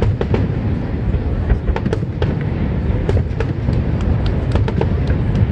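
Fireworks display: a steady low rumble of bursts with many sharp crackling pops scattered through it.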